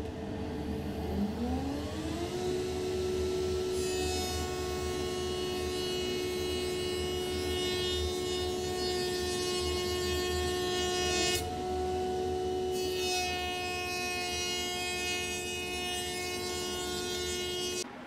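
Router in a router table with a bullnose bit, winding up to speed with a whine that rises in pitch over the first couple of seconds, then running at a steady high pitch. A hiss of the bit cutting along a board comes in about four seconds in, breaks off briefly past the middle, and the sound stops abruptly at the end.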